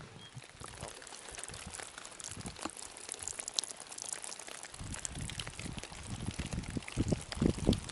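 Water dripping and trickling off moss-covered rock and a tree trunk, with many separate drops. About halfway through, a low rumble comes in under the drips.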